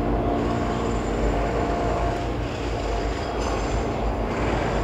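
Steady mechanical background noise with a faint whine, from building work at a neighbour's renovation.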